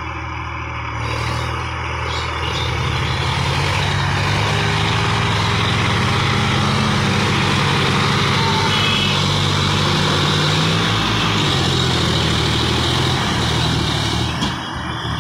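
Farm tractor diesel engines running hard under load, revving up about two seconds in and holding high while the tyres churn through deep mud. The sound drops near the end.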